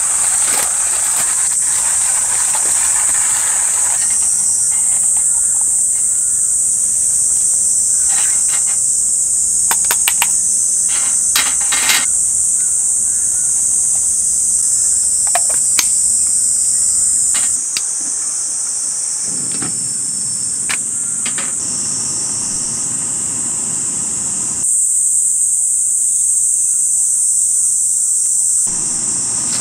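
Steady high-pitched chorus of insects. In the first few seconds a hand coffee grinder rasps, and a few sharp clicks and knocks come about ten seconds in.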